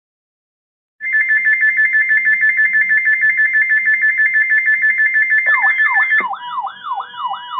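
Weather-radio alert alarms going off, signalling an incoming National Weather Service warning. About a second in, one alarm starts a fast, high warble between two pitches. About four seconds later a second alarm joins with a repeating falling sweep, about two or three a second, and it is still sounding when the first stops.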